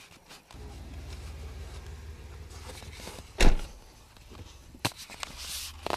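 A car door shutting with one loud thump about three and a half seconds in, over a steady low hum, with a sharp click near the end.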